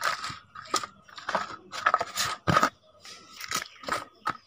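Potting mix of manure, sand and sandy loam scooped by hand into a cut-down plastic container: a quick series of short gritty scrapes and crunches of soil against plastic.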